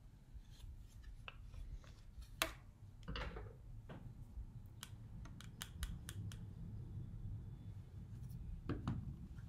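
Scattered small clicks and taps of makeup being handled, a blush compact opened and a brush worked in the powder pan, with a quick run of clicks around the middle, over a low steady hum.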